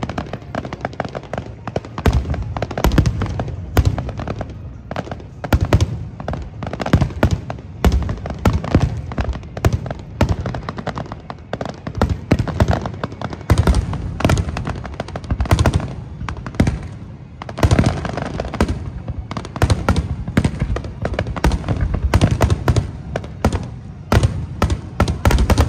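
Rapid-fire aerial fireworks barrage: many shells bursting in quick succession, sharp overlapping bangs over deep booms, with no break.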